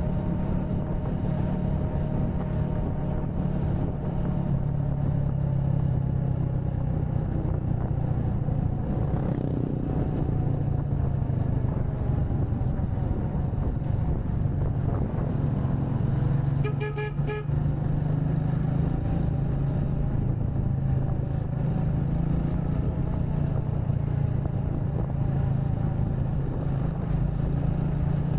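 A motorcycle on the road, with steady engine and road noise. About 17 seconds in, a horn gives a quick burst of short beeps.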